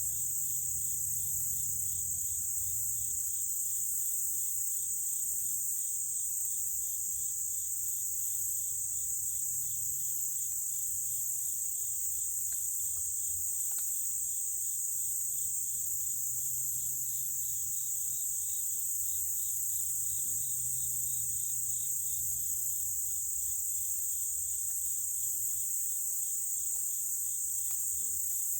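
Insects trilling in a steady, high continuous chorus, with a second, lower trill pulsing rapidly underneath.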